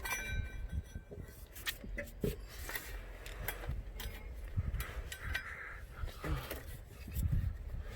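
Scattered light clicks and knocks of hands and metal parts as a new drive belt is worked onto the engine pulleys, over a low steady rumble.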